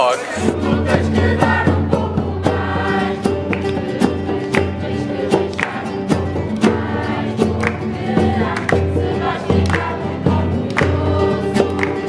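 A mixed group of voices singing together in chorus over several strummed acoustic guitars, with a steady strumming rhythm.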